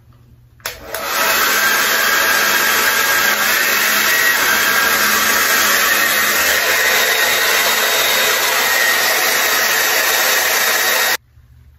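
Handheld hair blow dryer running steadily, blown onto an adhesive-coated wig cap to dry the glue. It switches on just under a second in and cuts off abruptly near the end.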